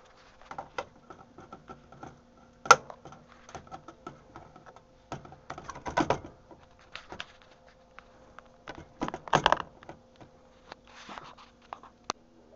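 Irregular knocks and clatter of metal food cans being handled and set down on a kitchen counter, with one sharp knock about three seconds in and a faint steady hum underneath.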